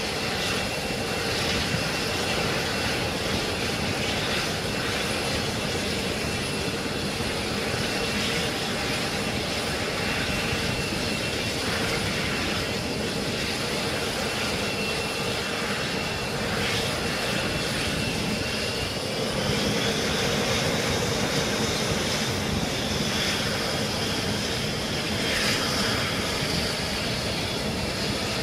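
Jet engines running on an aircraft carrier's flight deck: a steady rush of engine noise with a high turbine whine that rises in pitch about twenty seconds in.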